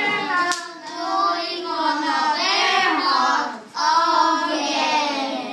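A group of young children's voices raised together in long, drawn-out, wavering calls, with a short break about three and a half seconds in.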